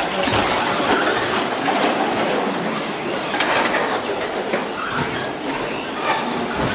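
Radio-controlled 1/10-scale short course trucks racing, their motors running with a pitch that rises and falls as they speed up and slow down.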